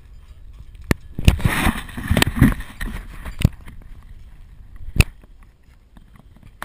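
Handling noise as the camera is moved around: a few sharp knocks about a second apart, rubbing and rustling in the first half, then one last knock near the end.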